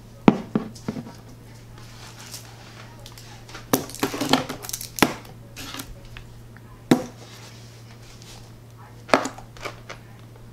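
Drinks and a takeout bag being set down on a table: a handful of sharp knocks as a glass bottle and juice boxes are placed on the tabletop, with some paper-bag rustling, over a steady low hum.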